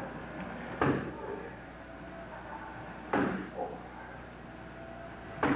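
Strikes landing on a hand-held martial-arts strike pad: three sharp smacks about two seconds apart, with a lighter hit just after the second.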